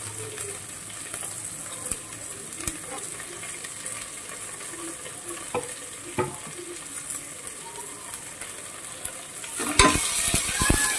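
Sliced onions with mint and coriander leaves sizzling in oil in a metal pot, with scattered light crackles. Near the end a metal spoon starts stirring, scraping and clinking against the pot, and the sizzle gets louder.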